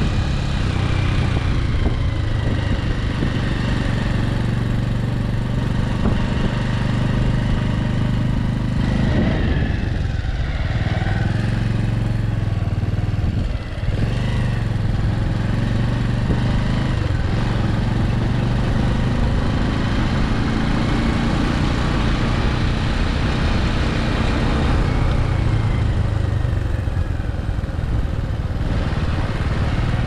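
A motor vehicle's engine running steadily while driving, its pitch falling and rising a few times, with a brief dip in level about 13 seconds in.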